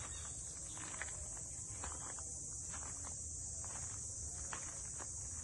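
Steady high-pitched drone of insects, with a few faint footsteps crunching on gravel.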